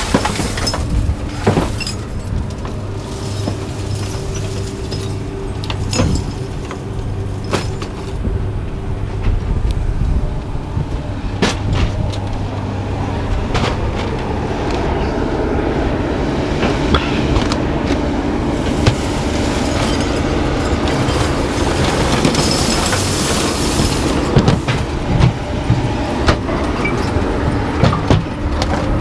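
An engine running steadily, with scattered metal clanks and knocks as scrap metal is handled; it grows busier and rougher over the second half.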